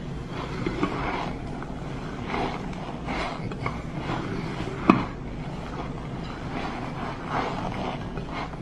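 Squeaky cornstarch crunching and crumbling as a hand squeezes a large clump of it, in uneven bursts. One sharp click about five seconds in.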